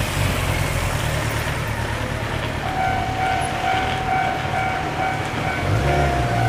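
Japanese level crossing's electronic warning bell starting to ring about a third of the way in, a quick repeating ding at about two strokes a second, over a steady low rumble.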